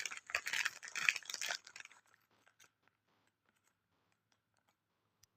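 A dog crunching and chewing a hard snack, with loud crackly crunches for about two seconds, then only faint scattered clicks of chewing.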